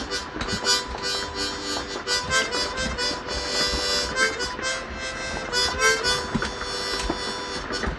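Harmonica being played: held chords broken up by quick short notes.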